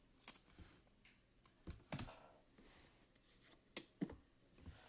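Faint, scattered clicks and taps of trading cards being handled and set down, over near silence.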